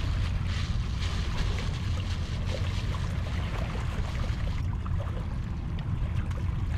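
Wind buffeting the microphone in a steady low rumble, over the hiss and wash of sea waves; the wash eases about two-thirds of the way through.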